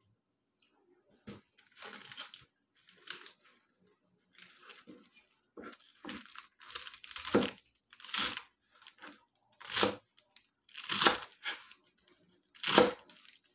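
Kitchen knife cutting lettuce on a plastic cutting board: short cuts at an uneven pace of about one a second, starting just over a second in and getting louder from about halfway through.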